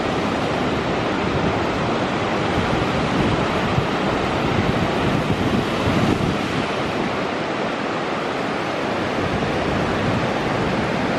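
Pacific surf washing up a flat sand beach: a steady rush of breaking waves and shallow swash running in over the sand.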